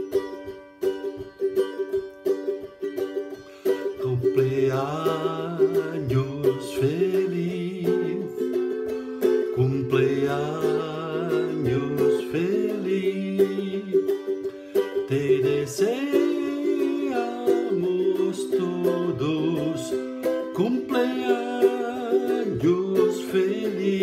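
Ukulele strummed alone at first, then a man's voice singing along with it from about four seconds in.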